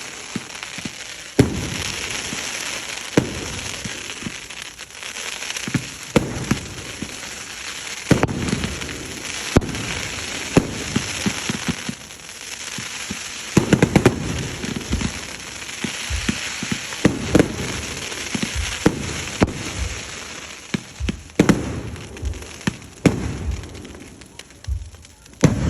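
Bonfire burning, with frequent sharp cracks and pops at irregular intervals over a steady hiss of flame.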